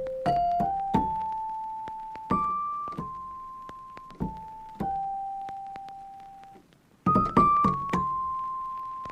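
Background music: a slow, simple piano melody of single notes, each ringing and fading away, with a quick run of notes about seven seconds in that settles on a long held note.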